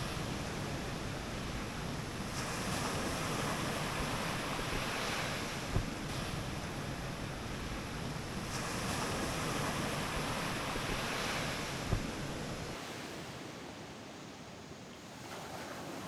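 Steady rushing outdoor noise that swells twice and eases, with two soft low thumps, and turns thinner and quieter a little after twelve seconds in.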